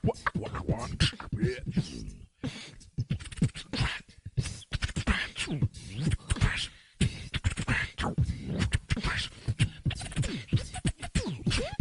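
Two beatboxers performing together over a TeamSpeak voice-chat connection: a mouth-made beat of rapid clicks and drum sounds with vocal scratching, quick sliding pitches that imitate a DJ scratching a record.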